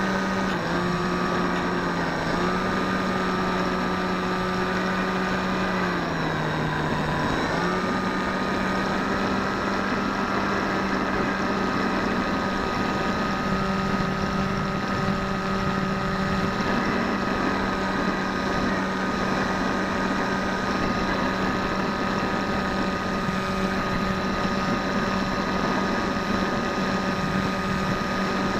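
Bixler v1.1 RC plane's electric motor and pusher propeller running at a steady pitched drone, heard from the onboard camera with rushing airflow. The pitch dips slightly a couple of times in the first few seconds and drops further about six seconds in as the motor slows, then comes back up and holds steady.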